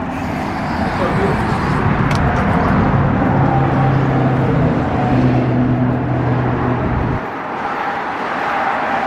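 A motor vehicle's engine running close by over road noise, a steady low hum that cuts off suddenly about seven seconds in.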